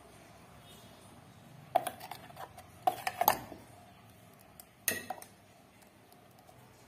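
A steel spoon clinking and scraping against a stainless-steel mixer-grinder jar while scooping out ground mint paste. The sharp metallic clinks with a short ring come in three clusters, about two, three and five seconds in.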